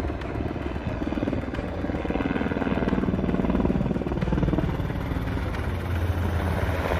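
Military helicopter's rotor chopping steadily as it flies past low overhead, with its deep engine drone growing stronger near the end.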